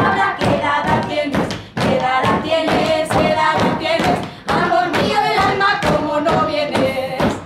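Women's and girls' voices singing a Castilian folk song in the panaderas style, accompanied by hands striking and slapping wooden table tops in a steady beat of thumps, about two or three a second.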